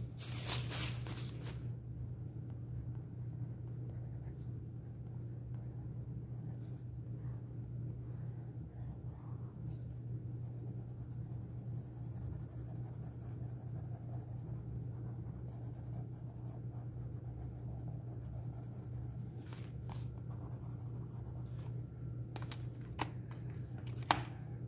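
Derwent Graphitint pencil scratching across paper as a swatch is shaded in, strongest in the first second or so, over a steady low hum.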